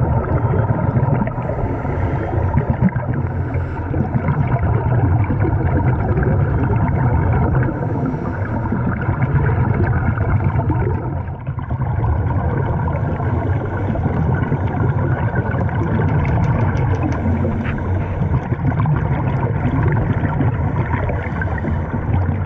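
Steady, muffled underwater rumble with bubbling from scuba divers breathing through their regulators.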